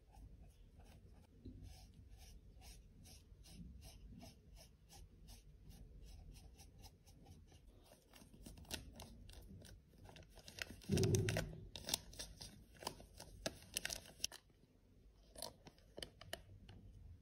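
A brush sweeping loose face powder off a paper compact box, a steady train of soft strokes about two or three a second. Around eleven seconds in, a louder crinkling and crackling of a powder-covered plastic bag being handled, lasting about three seconds, then a few light clicks near the end.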